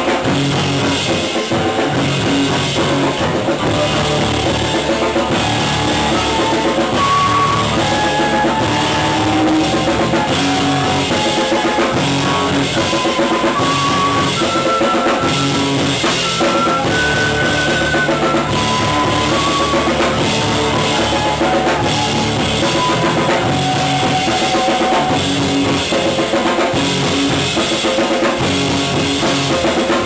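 Live band playing: a flute carries the melody over acoustic guitar, electric bass and drum kit, then drops out near the end.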